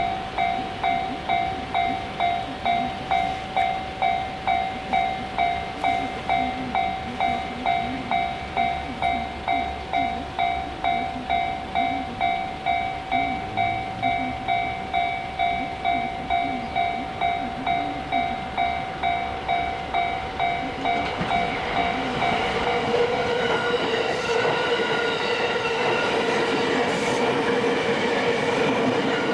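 Japanese level-crossing warning bell ringing in a steady rapid rhythm, about two strokes a second. About 23 seconds in, the bell gives way to the running noise of a passing JR East suburban electric train, with a steady whine.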